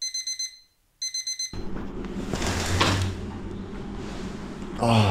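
Electronic alarm beeping: two short bursts of rapid high-pitched beeps about a second apart, ringing as a wake-up alarm. Afterwards a steady low room hum.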